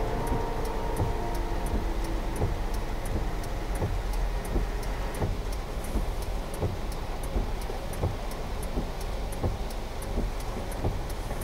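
Cabin noise of a car waiting at a standstill in rain: a steady low rumble, an even fast ticking about three times a second, and soft thuds every second or so. Background music fades out about two seconds in.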